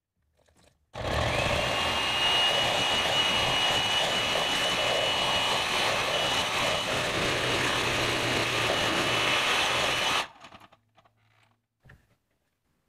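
Electric hand mixer with wire beaters whisking a runny egg-yolk and condensed-milk filling in a plastic bowl. It switches on about a second in with a short rising whine, runs steadily, and cuts off sharply near the end, followed by a single click.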